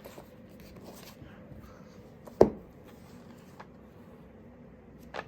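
Quiet small room with faint handling sounds and one sharp knock about two and a half seconds in, as things are picked up and put down.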